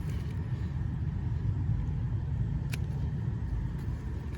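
Wind buffeting the microphone outdoors, a steady low rumble, with a single small click about two-thirds of the way through.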